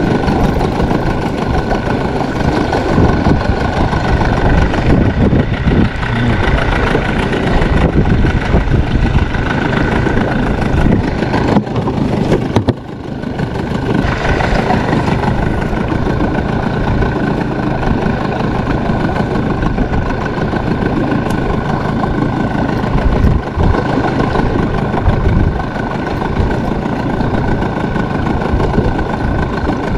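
Small boat's motor running steadily with a constant whine, over a heavy, uneven rumble low down.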